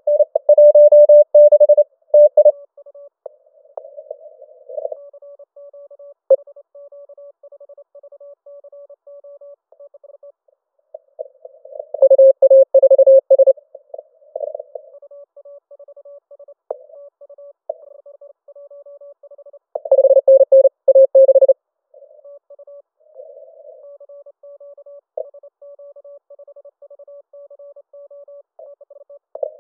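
Morse code (CW) tones of about 550 Hz from a Yaesu FT-891 HF transceiver during a CW contest: three loud stretches of keyed code, near the start, about twelve seconds in and about twenty seconds in, with fainter stations keying Morse in between.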